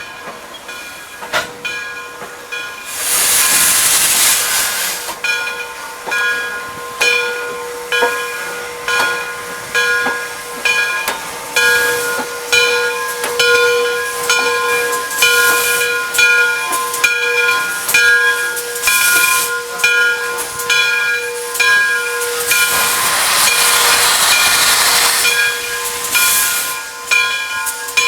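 Steam locomotive working: two loud, long bursts of steam hiss, one a few seconds in and one near the end. Between them runs a steady beat about once a second, each beat carrying a ringing tone.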